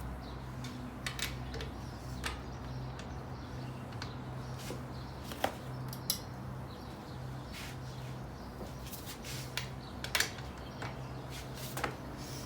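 Scattered sharp metal clinks of a lug wrench on the wheel nuts, a handful of separate knocks spread over several seconds, over a steady low hum.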